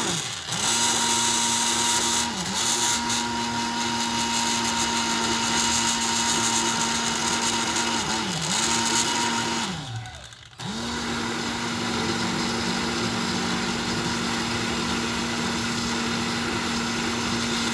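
Countertop blender motor running steadily while blending a batter, its pitch dipping briefly twice. It stops about ten seconds in and starts again a moment later.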